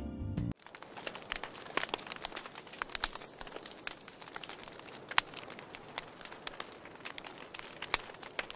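Background music cuts off abruptly about half a second in, giving way to a crackling fire with irregular sharp pops.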